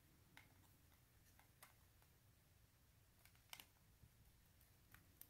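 Near silence with a handful of faint small clicks, the clearest a quick pair a little past halfway: a white plastic plug follower tapping and fitting against the end of a brass lock cylinder.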